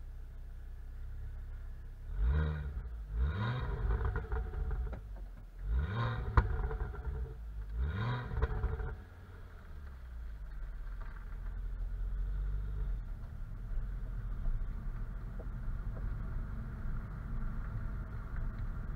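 2007 Ford Focus ST's turbocharged 2.5-litre five-cylinder engine, heard at the stock exhaust tip: idling, then revved sharply four times, with a single sharp crack on the third rev. After that it runs steadily at lower revs as the car drives off, with road noise.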